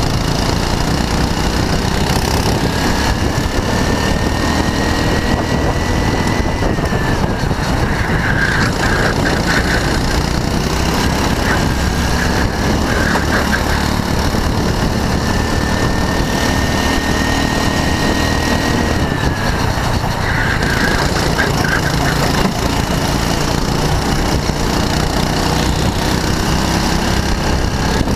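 Go-kart engine heard from the driver's seat, running hard the whole time. Its pitch climbs twice as the kart accelerates down the straights, then drops as the driver lifts for the corners.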